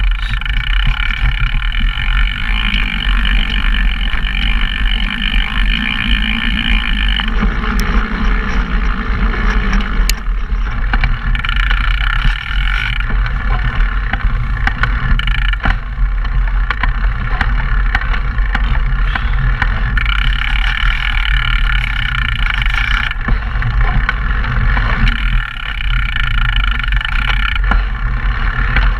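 Mountain bike running down a rough dirt downhill trail, heard through the bike's action cameras: a constant wind rumble on the microphones, with frequent clicks and knocks as the bike rattles over the ground.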